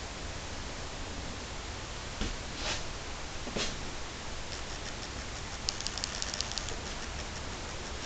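Steady hiss of a handheld recording in a small room, with a few soft rustles and, about six seconds in, a quick run of small clicks from handling as the camera is carried.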